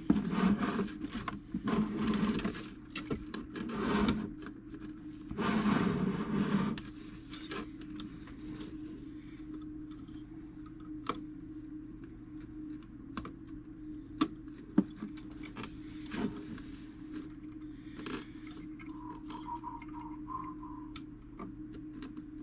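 Small metallic clicks and taps of brass clock parts being handled as a fusee movement's wheel pivots are worked into the plate holes. Handling noise for the first few seconds gives way to scattered single clicks, over a steady low hum.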